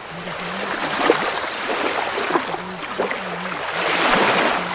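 Ocean waves washing in and drawing back, in slow swells, the loudest one near the end.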